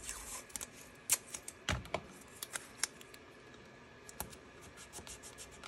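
Light, irregular clicks and taps from hands handling a stencil and pressing painter's tape down to fix it to a card on a cutting mat.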